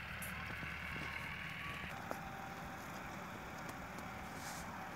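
Steady background noise, a low rumble with a faint hiss, with one light tap about two seconds in.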